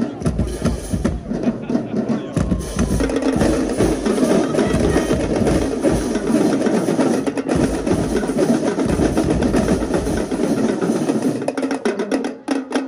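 Marching drumline playing a cadence: snare drums, tenor drums and bass drums with cymbals, in dense, fast strikes.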